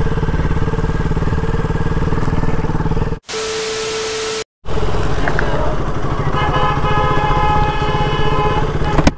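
KTM RC 200's single-cylinder engine running steadily while riding. About three seconds in it cuts out for a burst of TV-static hiss with a steady beep lasting about a second, then the engine sound returns; for the last couple of seconds a steady higher tone sounds over it.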